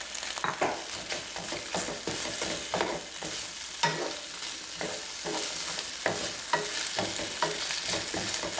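Sliced red onions sizzling in hot fat in a frying pan, stirred with a wooden spoon that scrapes and knocks against the pan about twice a second.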